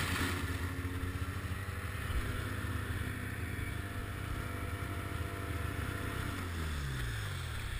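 Ski-Doo MX Z 700 snowmobile's two-stroke engine running at low speed. Its pitch falls near the end as the sled slows.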